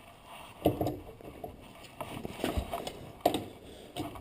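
Irregular metallic clunks and knocks of hand tools working bolts on a car's underside, with one deep thud about halfway through.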